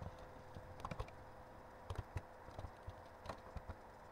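Faint, scattered keystrokes on a computer keyboard: a few single key clicks and small clusters, over a faint steady hum.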